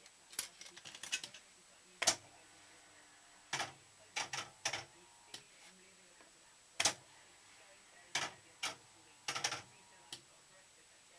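Ace Silver Machine fruit machine's reels and mechanism clicking and clattering in short bursts a second or two apart, as the reels are moved round.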